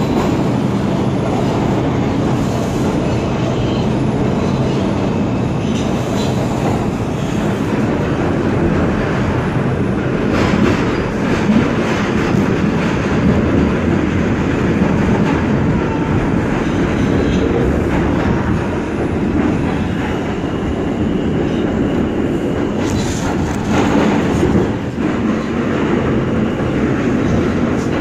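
R142 subway car running at speed between stations, heard from inside the car: a steady rumble of wheels on rail, with a few sharper knocks over the track.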